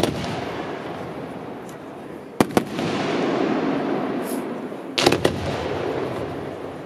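Aerial fireworks display: sharp bangs of shells bursting, one at the start, a pair about two and a half seconds in and a quick cluster about five seconds in, with a continuous noise filling the gaps between.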